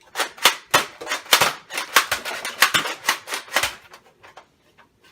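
Nerf Doomlands Vagabond toy blaster being worked and fired: a quick run of about a dozen sharp plastic clacks and pops, thinning to faint ticks near the end.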